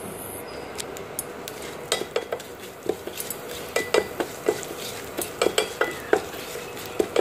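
A wooden spatula stirring spice powders into a tempering in hot sesame (gingelly) oil in a metal pressure cooker. The oil sizzles steadily, and from about two seconds in the spatula knocks and scrapes irregularly against the pot.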